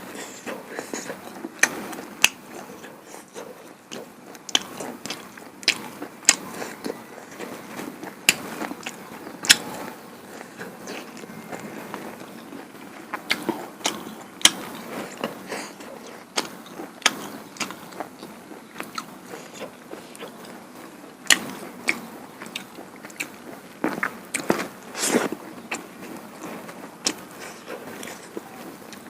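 A person chewing and eating duck curry with rice-flour pitha close to the microphone: irregular wet mouth clicks, smacks and chewing sounds, some sharper and louder than others.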